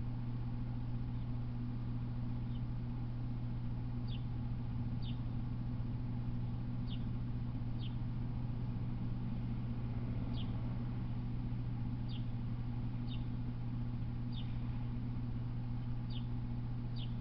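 Steady low electrical hum, with short, high chirps that slide downward repeating every one to two seconds, from a small bird.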